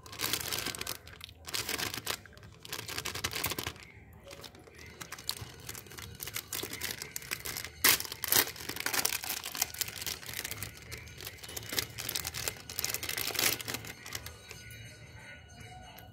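Plastic candy pouch crinkling and being torn open by hand, a dense, uneven crackle with the sharpest, loudest crackles about eight seconds in, quieter towards the end.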